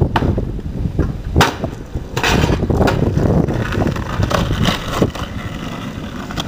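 Skateboard jumped down a five-stair set: sharp clacks of the board hitting concrete, the loudest about a second and a half in as it lands, then its wheels rolling rough over the pavement, with wind on the microphone.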